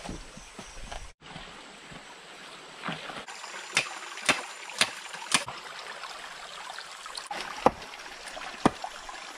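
Stream water running steadily through a dug trench and a metal channel. A few seconds in come four sharp knocks about half a second apart, and two more near the end.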